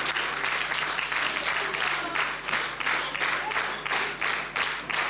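Audience applauding. About two seconds in the clapping settles into steady rhythmic clapping in unison, about three claps a second.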